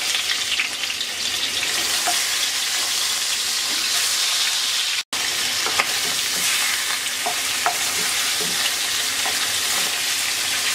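Rohu fish head and tail pieces, coated in turmeric and salt, sizzling in hot oil in a non-stick wok, with a wooden spatula turning them and tapping the pan a few times. The sizzle cuts out for an instant about halfway through.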